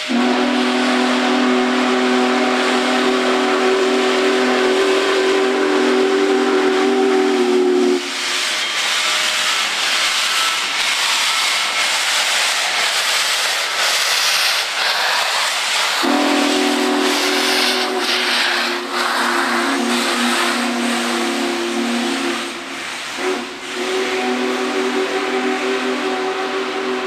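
Union Pacific Big Boy 4014 steam locomotive blowing its whistle, a chord of several tones held for about eight seconds, followed by a loud rush of hissing for about eight seconds. The whistle then sounds again, broken briefly once before running on.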